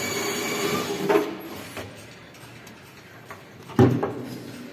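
Clanks and knocks of hand tools and metal parts as a Himalaya ride car is unbolted. A ringing metal clatter fills the first second, then come a few light clicks and one sharp knock near the end.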